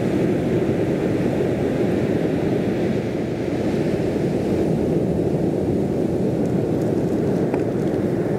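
Steady low roar of the sea at a pebble beach, even throughout with no single wave standing out, and a few faint clicks near the end.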